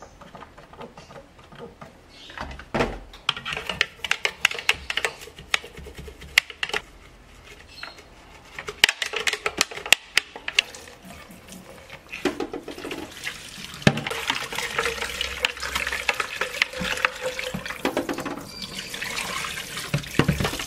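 Plastic blender jar being washed in a stainless steel sink: a bottle brush scrubbing inside the jar in quick repeated scraping strokes, then tap water running steadily over the jar and brush for the last several seconds.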